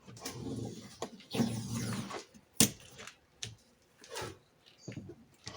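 Scraping and rattling of a scissor-type window regulator and door glass being worked loose inside a car door, with a sharp metallic click about halfway through and a couple of smaller knocks after it.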